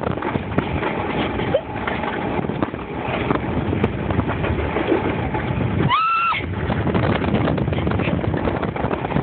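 Alpine coaster sled running fast down its steel tube-rail track: a continuous rumble and rattle of the wheels on the rails, with a short rising squeal about six seconds in.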